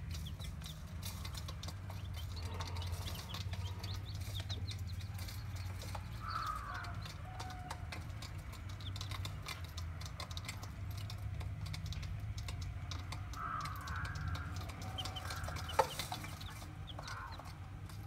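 Caged quail and young chicks giving a few short, soft clucking calls over a steady low hum, with scattered light clicks and one sharp click late on.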